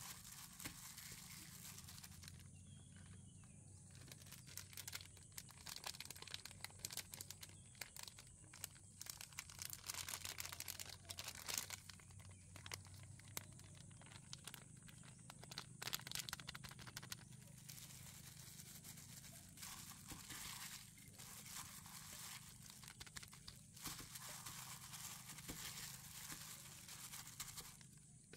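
Hands in thin plastic food-prep gloves rubbing seasoning into raw chicken in a bowl: faint, irregular crinkling and rubbing that comes and goes, densest midway. A steady low hum and a steady high whine run underneath.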